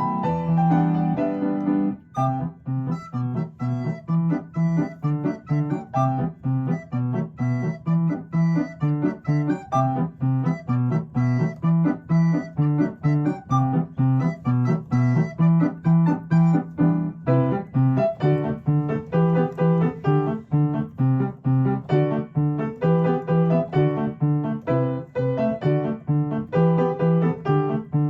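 Piano playing a bouncy pop tune in steady repeated chords, about two strokes a second, with a brief break about two seconds in.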